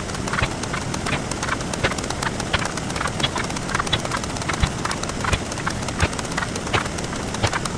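A dense, irregular stream of sharp clicks and taps, several a second, over a steady noisy hiss: sound effects played back 64 times faster than normal.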